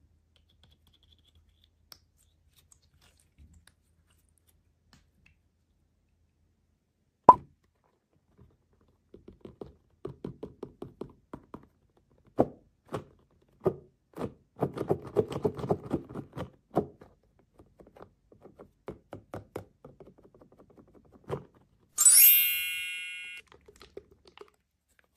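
Slime being squished and poked by hand: after a quiet start, a run of small, irregular wet squelches and pops. There is a single sharp click before the squelching and a brief high-pitched squeak near the end.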